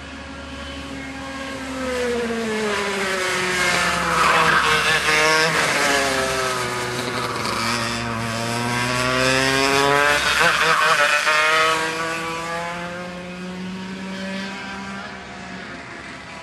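A racing kart's Parilla Leopard 125cc two-stroke engine running at speed on the track. Its pitch falls and rises as it slows and accelerates through the corners, and it is loudest twice as it passes close, about four to six seconds in and about ten to twelve seconds in.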